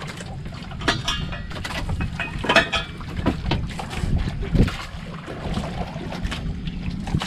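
Calamansi juice poured from a mug into a pot of fish soup, with a plastic ladle and the mug knocking against the aluminium pot several times, over a steady low rumble.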